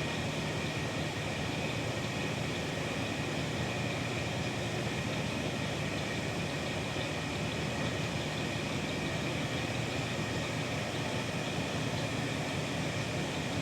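Steady mechanical hum with a constant hiss, unchanging throughout, like running background machinery or ventilation.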